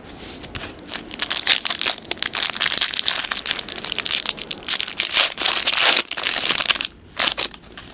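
Foil wrapper of a trading-card pack being torn open and crinkled: a dense run of crackling that stops about seven seconds in, followed by a couple of short crinkles.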